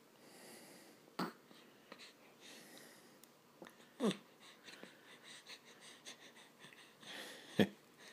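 Newborn baby breathing audibly, with three short noises about a second in, around four seconds in and near the end; the last two slide down in pitch.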